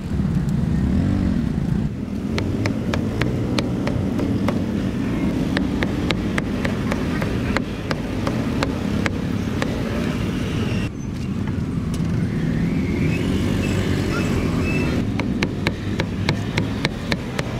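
Street traffic with engines running, under a string of sharp knocks that come irregularly at first and several a second near the end.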